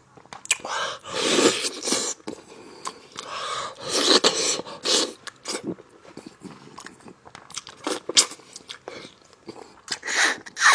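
Close-miked eating of spicy stewed lamb bones: wet chewing and biting of the tender meat, with three longer noisy stretches of a second or so and many short smacks and clicks.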